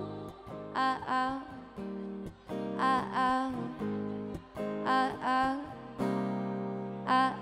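Live acoustic guitar strummed one chord at a time, a new chord about every two seconds and left to ring, while a woman sings short phrases over it.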